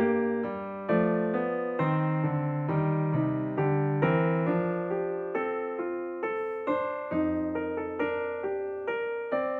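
Background piano music: a gentle melody of separate notes, each struck and fading, a few notes a second.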